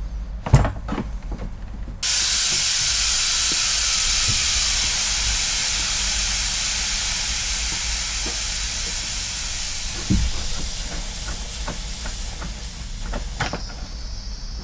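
Pressurised nitrogen hissing out of an air-conditioner refrigerant system as the pressure-test gas is vented. The loud hiss starts suddenly about two seconds in and slowly fades as the pressure drops, thinning to a fainter, higher hiss near the end.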